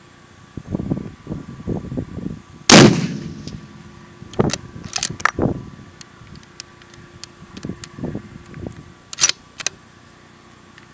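A single rifle shot from a Savage Model 11 bolt-action in 7mm-08 Remington, a 139-grain hand load, about three seconds in, with a short echo trailing after. Wind buffets the microphone in low rumbles before the shot. Afterwards comes a run of sharp metallic clicks as the bolt is worked, and two more clicks near the end.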